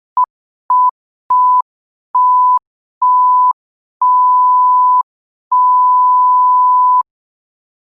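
A series of seven electronic beeps at one steady pitch, each longer than the last: short pips at first, the last two held about one and one and a half seconds, with silence in between.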